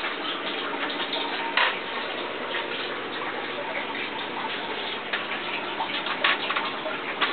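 Steady trickling and splashing of water circulating through an aquaponic system, with irregular sharper ticks and drips over it, the strongest about a second and a half in and again about six seconds in.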